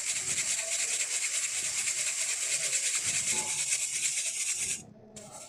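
Wheat flour being sifted by hand through a stainless steel sieve, the palm rubbing and shaking it: a fast, rhythmic, hissing rustle that stops suddenly near the end.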